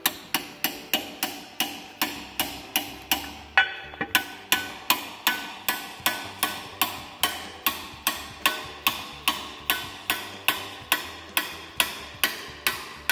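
Hammer tapping on metal in steady, ringing blows, about two and a half a second with a short pause about four seconds in, working the Massey Ferguson 165's rear brake mechanism back into place on its shaft.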